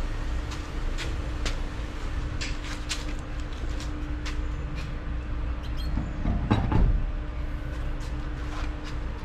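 Alloy wheel and tyre being lifted and fitted onto the hub studs: scattered light knocks and clicks, with a louder scraping clunk about seven seconds in as it seats, over a steady background hum.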